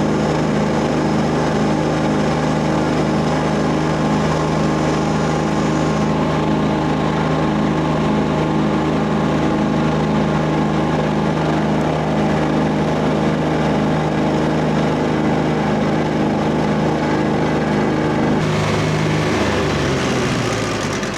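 A frost fan's engine and big fan running steadily at speed. About two seconds before the end the engine drops its revs, its pitch falling as it slows down.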